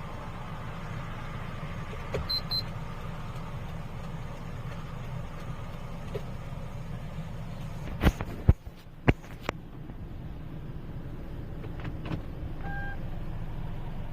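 Steady Kia Ray cabin noise of a car on the move, with the blind-spot alert's electronic beeps: a quick high double beep about two seconds in and a single lower beep near the end. A few sharp knocks come in the middle.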